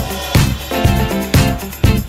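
Upbeat instrumental background music with a steady beat, about two drum hits a second.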